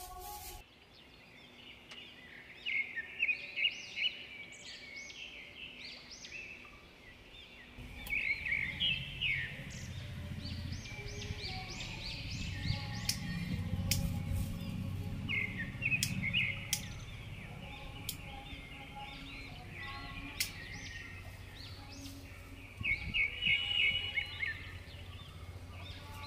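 Birds calling in repeated bursts of quick chirps, several times over. A low rumble comes in about eight seconds in and fades again before the last burst.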